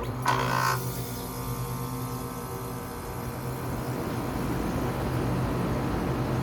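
Kelvinator (Nordyne) central air-conditioning system starting up in cool mode: a steady low hum under an even rush of moving air that builds gradually over the first few seconds as the blower comes up to speed. A brief ringing sound comes just after the start.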